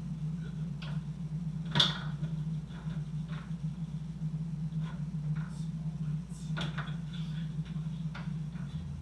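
Foosball table in play: scattered sharp clacks and knocks of the ball against the plastic player figures and rods, with one much louder sharp hit about two seconds in, over a steady low hum.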